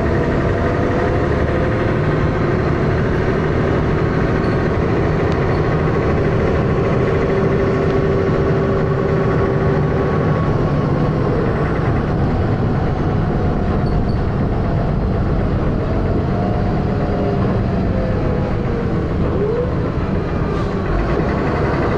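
Dennis Arrow double-decker bus engine running loudly with a lot of thrash, heard from on board, with whining tones that slide up and down as it drives.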